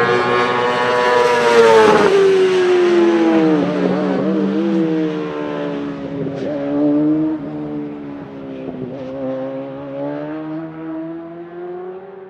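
Yamaha R1 inline-four motorcycle engine in a race car going past at high revs, loudest about two seconds in as its pitch drops. The revs then dip and waver around four and six seconds in as it slows through a corner. It then pulls away again, pitch climbing while it fades into the distance.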